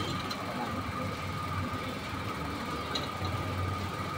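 Steady background din of a busy wholesale market: a constant low hum with a thin, steady high whine over it, and a few faint light knocks.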